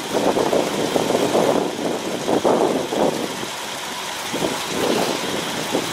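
Car engine idling steadily, with its level swelling and easing irregularly.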